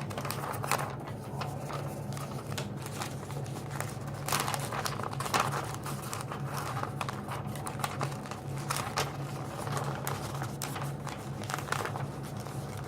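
A piece of paper being rolled up tightly by hand, crinkling with many small irregular crackles, over a steady low hum.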